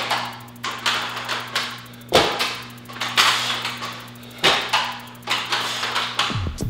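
Block-style dumbbells knocking down onto a rubber gym floor, a sharp clank about every two seconds with a lighter knock between, as reps of a dumbbell row to press are done. Background music with a sustained bass note runs underneath and turns into falling bass slides near the end.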